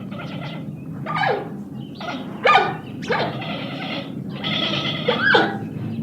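Animal calls one after another: several short cries that drop sharply in pitch, and longer drawn-out calls in between.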